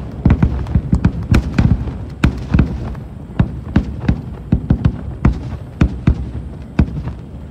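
Large aerial fireworks bursting in a rapid, irregular series of booms and sharp cracks, several a second, over a continuous low rumble.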